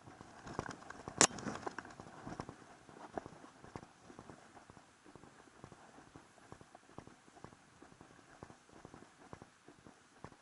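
A hiker's footsteps on a dirt trail, a steady run of short crunching steps, with one sharp, much louder knock about a second in.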